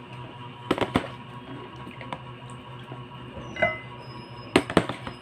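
Utensils clinking against dishes in a few sharp clicks, a cluster about a second in and another near the end, over a steady low hum.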